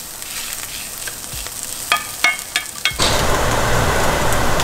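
Onions, yellow pepper and garlic sizzling in a hot stainless-steel sauté pan, with a spoon clicking and scraping against the pan several times. About three seconds in, the sizzle cuts off abruptly and a steadier, louder background noise takes over.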